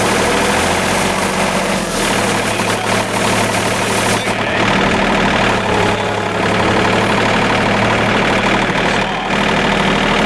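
John Deere 2720 compact tractor's three-cylinder diesel running steadily while its front-mounted rotary broom sweeps snow, with a hiss of brushing that eases about four seconds in.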